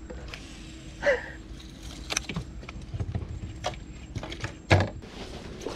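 A cast and retrieve with a baitcasting reel: a hiss of line paying out just after the start, then the reel being cranked, with scattered light clicks and one sharper knock about five seconds in.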